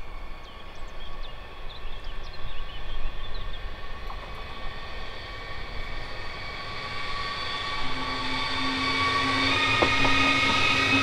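A train approaching and growing louder over the second half, with several steady tones strengthening as it comes near.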